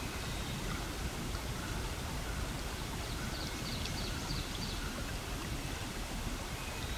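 Steady, even rushing noise with no distinct events, and a few faint scratchy ticks about three to four seconds in.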